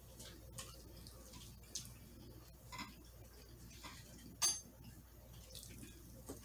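Metal fork clinking and scraping against glass bowls and a plate, with one sharp ringing clink about four and a half seconds in and faint clicks between.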